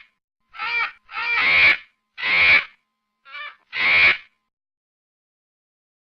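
A monkey giving a run of five short, harsh calls one after another, each under a second long, the fourth weaker than the rest.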